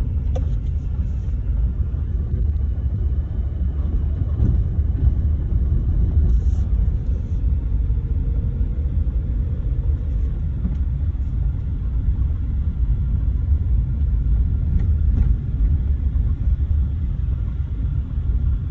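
Steady low rumble inside a moving car's cabin: engine and tyres running over a worn, patched road surface, with a few faint clicks.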